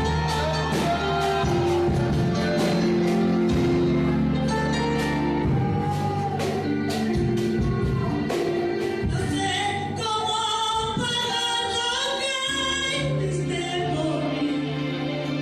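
Worship song played live by a band: singing over sustained bass and keyboard notes with regular drum strikes.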